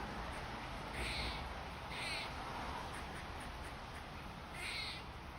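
Squirrel calling: three short, raspy calls about a second in, at two seconds and near the end, over a steady background hiss.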